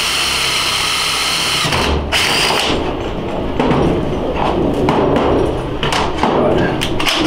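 Cordless drill running steadily as it bores a tap-size hole through a metal plate, the motor whine stopping a little under two seconds in. Irregular metal scraping and clatter follow as the drilled plate is handled on a steel bench.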